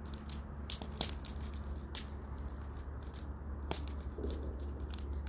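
Wood fire in an outdoor fire pit crackling, with irregular sharp pops, the clearest about a second, two seconds and near four seconds in, over a steady low hum.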